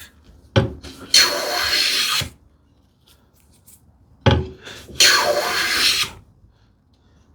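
No. 5 hand plane taking two test strokes along a wooden board, each a hissing shaving cut about a second long, each preceded by a sharp knock. The cuts check the blade's depth after the iron has been advanced.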